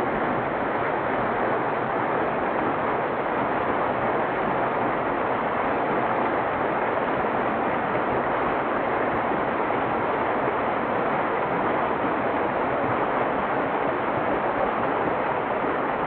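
Small mountain waterfall splashing down a rock face into a shallow pool: a steady rush of falling water.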